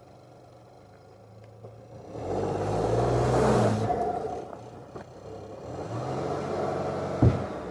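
Skoda Kushaq SUV's engine revving up and down twice as the car tries to drive free of a tree stump it is stuck on, with a sharp knock near the end.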